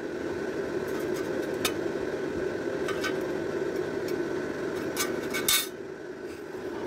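A steady machine hum with a faint high whine, and a few sharp metallic clinks as the thin sheet metal is handled against the steel tube. The loudest clink comes about five and a half seconds in.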